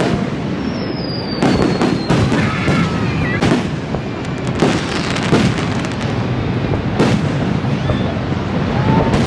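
Fireworks bursting overhead: a string of sharp bangs every second or so over a steady rumble, with a falling whistle about a second in.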